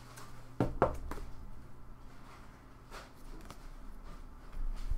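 Trading card being slid into a soft plastic penny sleeve and a rigid plastic toploader: scattered crackles and clicks of handled plastic, the sharpest about a second in, with a low thump near the end.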